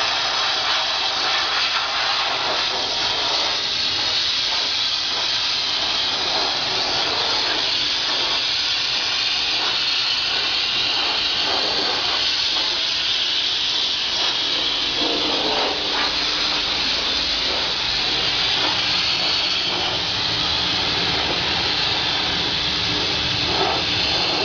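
SATA compressed-air paint spray gun hissing steadily as it sprays paint onto a car body. A low steady hum joins about halfway through.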